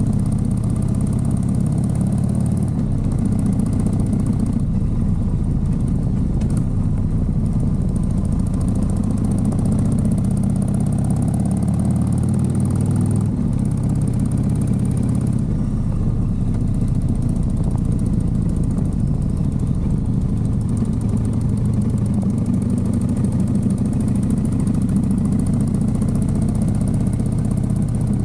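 Motorcycle engine running steadily with a low drone, its pitch shifting a little now and then as the bike is ridden.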